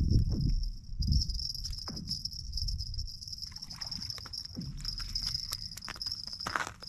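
A steady high-pitched whine, with scattered low knocks and short clicks over it.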